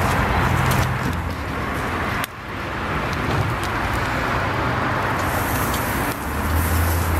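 Steady outdoor background noise, a hiss with a low rumble, that dips suddenly for a moment about two seconds in.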